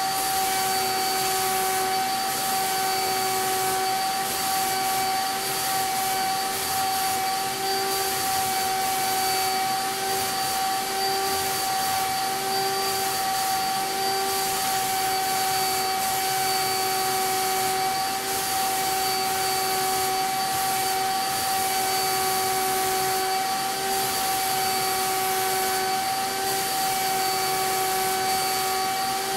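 HVLP turbine sprayer (Titan CAPSpray) running steadily: a constant whine over rushing air as shellac-based primer is sprayed through the gun. A lower hum within it wavers on and off.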